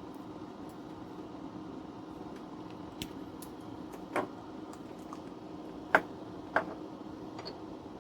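Small parts and tools being handled on a workbench: four light clicks and taps, the sharpest about six seconds in, over a steady low hum.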